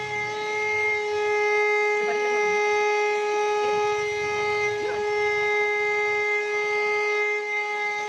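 Handheld vacuum cleaner's motor running with a steady high whine as its nozzle sucks up loose granules, with a few faint ticks.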